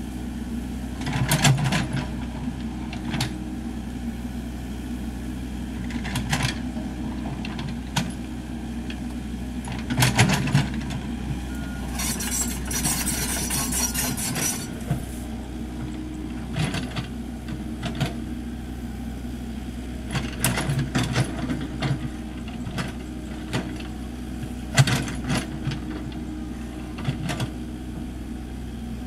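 Komatsu PC78US mini excavator's diesel engine running steadily while digging, with repeated clanks and scrapes as the bucket bites into the soil. A hiss lasts a couple of seconds about midway.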